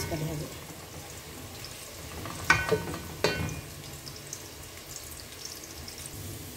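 Chopped onion sizzling as it fries in an aluminium pot, stirred with a wooden spoon. The spoon knocks twice against the metal pot, about two and a half and three seconds in, with a brief ring.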